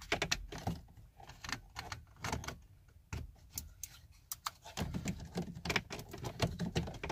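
Plastic clicking and rattling of a climate control unit and dash trim being handled and pressed into place in a 1998–2002 Honda Accord dashboard: a string of quick clicks and knocks, busier in the last couple of seconds.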